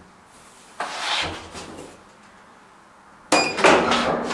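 Elevator car's metal door hardware releasing with a sharp clank and a brief ringing, about three seconds in, after a short rushing noise about a second in. As the door opens, the steady hum of a subway train at the platform comes in.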